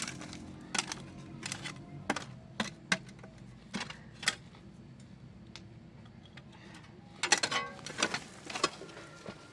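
Irregular sharp clicks and knocks, a few scattered over the first half, then a quick cluster of rattling knocks near the end.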